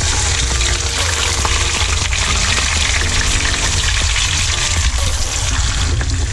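Whole fish frying in hot oil in a nonstick frying pan: a loud, steady sizzle.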